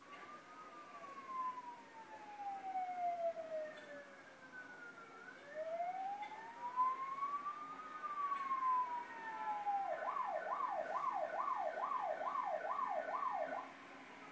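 Electronic siren sounding a slow wail that falls, rises and falls again in pitch, then switches about ten seconds in to a fast yelp of roughly two warbles a second before stopping.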